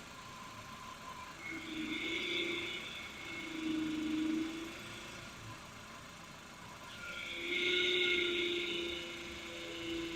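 Power steering vane pump whining as the steering wheel is turned with the engine running: a pitched whine that swells twice briefly, then again for longer from about seven seconds in. This is the abnormal noise on turning the wheel, coming from the power steering pump.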